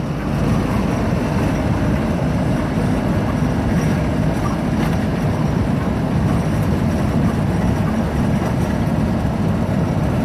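Steady engine and road noise of a car driving along a country road.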